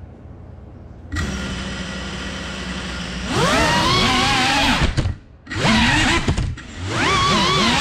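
3.5-inch cinewhoop FPV drone's brushless motors. About a second in they start spinning at idle with a steady hum. They then spool up into a loud whine that rises and falls with the throttle as the drone lifts off, cut back sharply for a moment near the middle and throttled up again.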